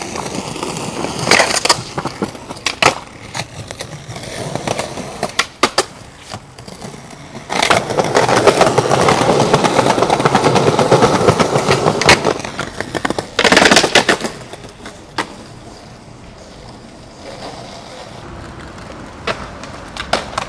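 Skateboard wheels rolling over rough paving, with sharp pops and clacks of the board's tail and landings. A long loud stretch of rolling comes about halfway through, followed by another short loud burst.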